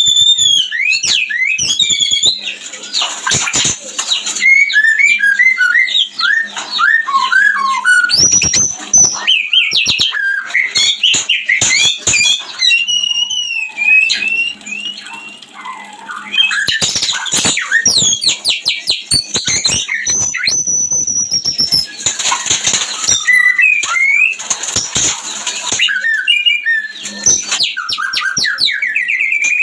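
White-rumped shama (murai batu) in breeding condition singing loudly and continuously: varied whistled phrases of rising and falling notes, broken every few seconds by harsh rasping bursts.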